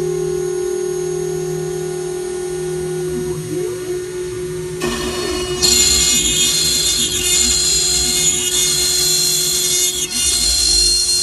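CNC router running with a steady spindle whine and gliding tones from the axis motors. About five seconds in the bit starts cutting into wood, adding a loud, dense hiss that continues to the end.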